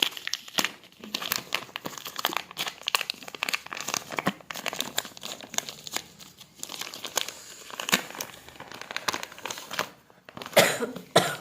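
Packaging crinkling and rustling as it is unwrapped by hand, in many irregular sharp crackles, with a louder burst of crinkling near the end.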